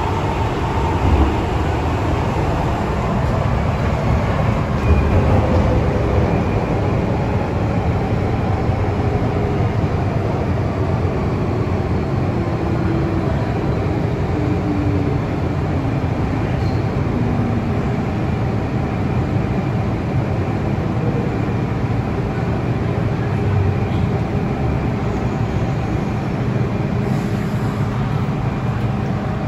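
MTR Tsuen Wan Line M-train running, a steady rumble of wheels on rail and traction equipment. Through the middle, faint whining tones from the train step down in pitch.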